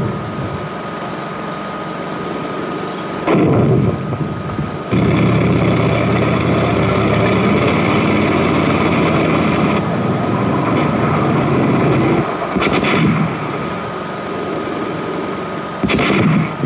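Battle sounds on an old war-film soundtrack: a sudden loud bang about three seconds in, then a vehicle engine running steadily for several seconds, with further bangs near the end. A thin steady hum from the old soundtrack lies under it all.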